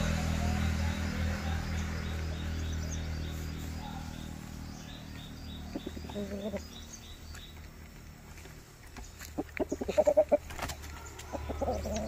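Aseel rooster clucking in short bursts, with a quick run of loud clucks about ten seconds in. A low hum fades out in the first few seconds, and a faint high chirp repeats evenly in the background.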